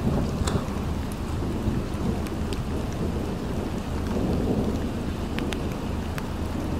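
Thunderstorm: a steady low rumble of thunder under the hiss of falling rain, with a few sharp ticks of drops striking close by.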